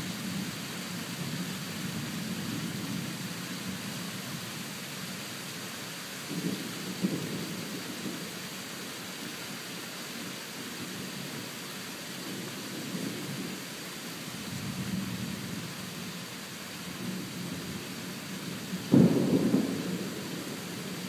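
Thunderstorm: steady rain with low rolls of distant thunder coming and going, and a sharper, louder thunderclap near the end that rumbles off.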